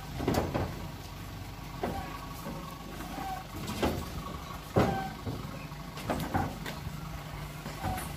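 Metal truss tower sections knocking and clanking against each other and the pickup's rack as they are lifted and slid onto the truck: about seven sharp knocks, the loudest near the middle, over a steady low hum.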